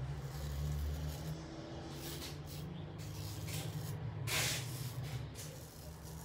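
8/8 Max Sprecher straight razor cutting lathered neck stubble: several short scraping strokes, the loudest about four and a half seconds in.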